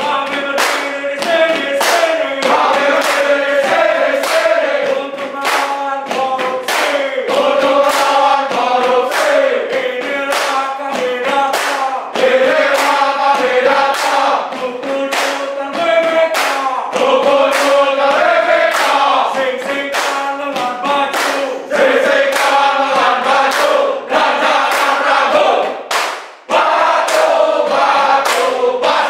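A group of men singing and chanting in unison, a drilled group cheer, kept to a steady beat by sharp hand claps.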